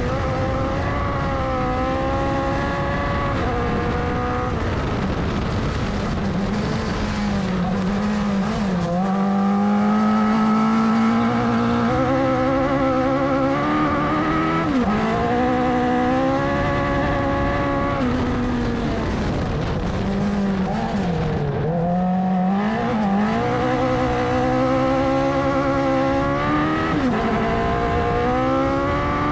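Open-wheel buggy race car's engine at full throttle, its pitch climbing and then dropping with each gear change or lift for a corner, about half a dozen times, with a deeper slowdown a little past the middle. Tyres rumble on loose gravel.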